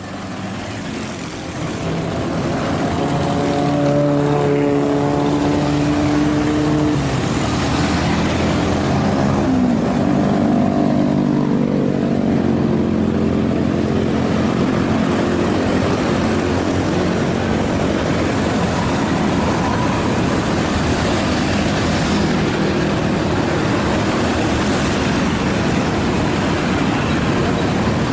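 Heavy road traffic with motorcycle engines running and vehicles passing, fading in over the first few seconds. Engine tones slide down and up in pitch as vehicles go by.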